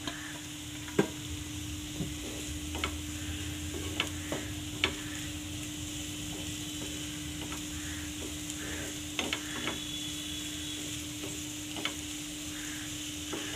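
Diced potatoes frying in oil in a non-stick pan with a steady sizzle, stirred with a spatula that scrapes and taps against the pan now and then.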